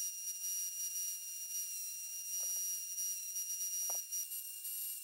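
Belt grinder running, a steady high-pitched whine over a hiss, as a steel knife blade is ground against the belt. Two short knocks about two and a half and four seconds in.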